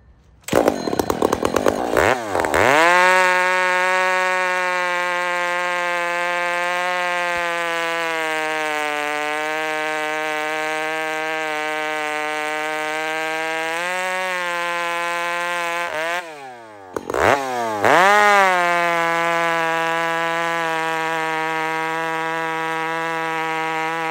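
Chainsaw with a hand-filed chain bucking a log, held at a steady high engine note under full throttle. About two-thirds of the way in the engine note drops off for a second, then revs back up and cuts on.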